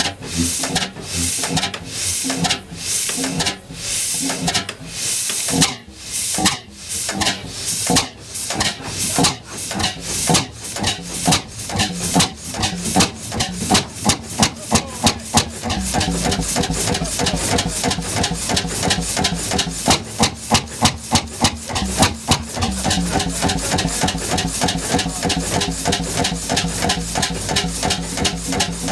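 1910 Cooper-Bessemer 35 HP single-cylinder two-stroke engine running, firing in a regular rhythm of sharp beats as its large flywheel turns. The beats come closer together as it goes, and a steady low hum joins about sixteen seconds in.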